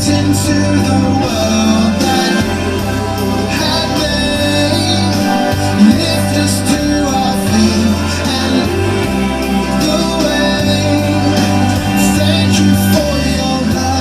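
Music: a worship song playing, with sustained bass notes, guitar and singing.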